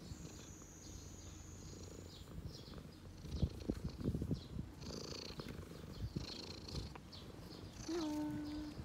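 A cat purring close by in a steady low rumble, with a short cry on one steady pitch near the end.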